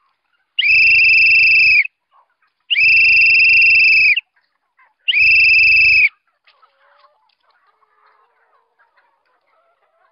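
Three long blasts on a whistle, each lasting a second or more on one steady high note: the farmer's call that brings his flock of chickens in to be fed. Faint scattered chicken sounds follow the blasts.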